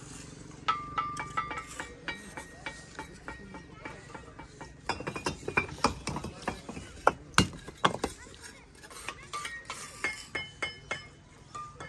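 Bricklaying: an irregular run of sharp clinks and knocks as fired clay bricks are handled and set, some ringing briefly, with a busier stretch in the middle.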